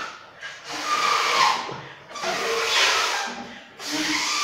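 A person blowing up a latex balloon by mouth: three long puffs of breath into it, with short pauses between.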